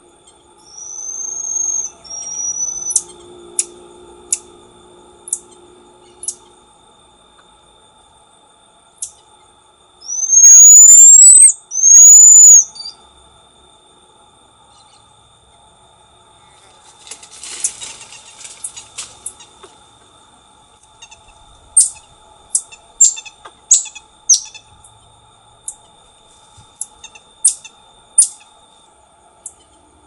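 Black-tufted marmoset calling: long, high whistles that rise in pitch, two of them very loud about ten and twelve seconds in. Between them come short, sharp high calls, a quick clicky chatter midway, and a run of brief high calls near the end.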